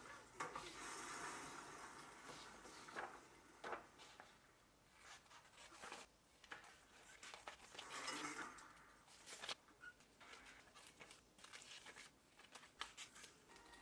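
Faint rustling of a printed paper sheet and repeated short snips of scissors cutting through it.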